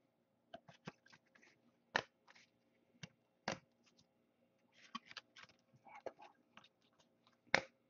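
A stack of 2014 Topps Chrome football trading cards handled and shuffled: a run of faint, quick clicks and scrapes of card against card, the sharpest about two seconds in, at three and a half seconds, and near the end.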